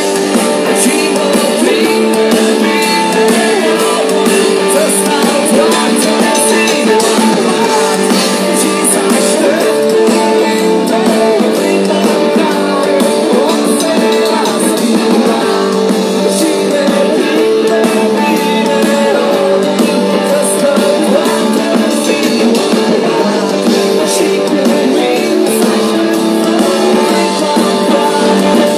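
Live rock band playing loud, guitar to the fore, heard from within the crowd on a phone so the bass is thin.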